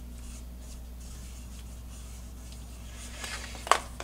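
Cotton ball rubbing over the plastic hub of a computer cooling fan in faint, repeated scrubbing strokes. Near the end the fan is handled, with a few clicks and one sharp knock.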